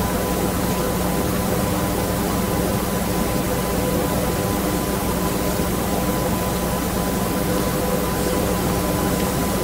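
Steady hiss with a constant low hum and a faint steady tone, unchanging throughout with no distinct events.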